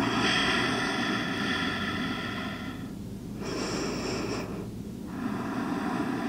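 A person breathing slowly and deeply, audible airy breaths: one long breath, a shorter one about three and a half seconds in, and another starting about five seconds in, with brief pauses between them.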